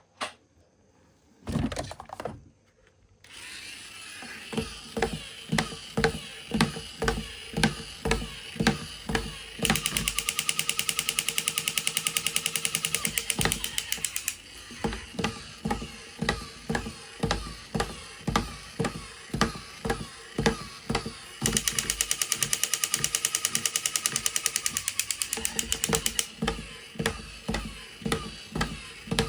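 A battery-powered toy vehicle running: a steady mechanical sound with a pulse about every 0.7 s, twice switching to several seconds of fast, jackhammer-like rattling. A few knocks near the start.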